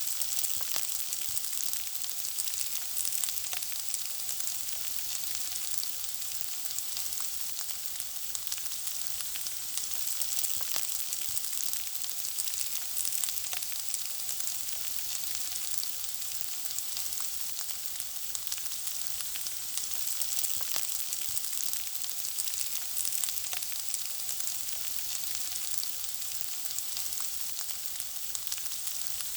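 Food frying, a steady dense sizzle with frequent small crackles and pops throughout.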